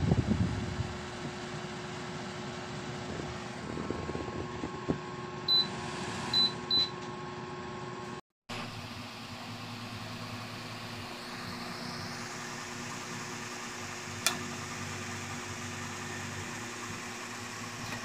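Kanazawa evaporative air cooler's fan running with a steady hum. The unit gives three short high beeps about six seconds in, the sound cuts out briefly a couple of seconds later, and there is a single sharp click near fourteen seconds.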